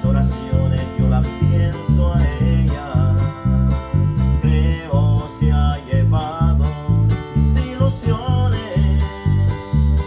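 Guitar-led music with a steady bass beat of about two to three pulses a second and a bending melody line above it.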